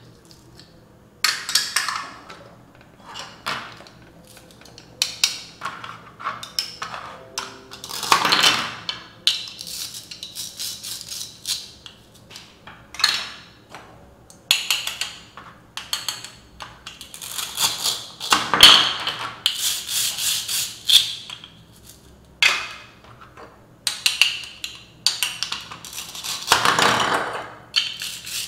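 Plastic toy fruit and vegetable pieces clicking, tapping and rattling as they are handled and cut apart with a plastic toy knife on a plastic board, with a few longer rasping rips, each about a second long, as pieces are pulled apart.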